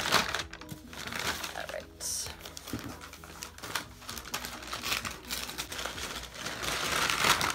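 Stiff brown paper shipping mailer crinkling and rustling as it is handled and opened, in irregular bursts that grow louder near the end.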